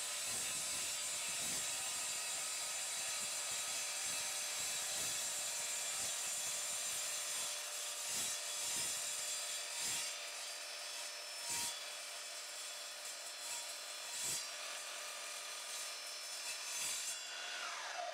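Evolution Rage 3 mitre saw's blade cutting through aluminium chequer plate: a steady high-pitched cutting noise scattered with clicks, ending in a falling whine near the end.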